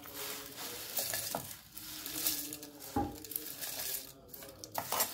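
Dry-roasted curry leaves, lentils and dried red chillies sliding off a steel plate into a steel mixer-grinder jar: dry rustling and scraping, with small clicks of lentils landing on the metal and a single knock about three seconds in.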